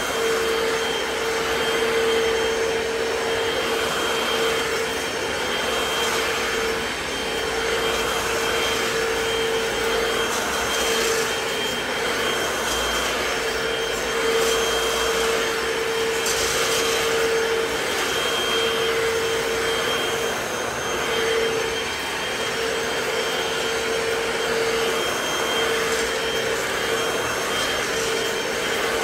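Hoover FloorMate hard-floor wet cleaner running steadily as it is pushed back and forth over a wet laminate floor, its suction motor holding a steady whine. The suction noise swells and dips with each stroke, about every second and a half.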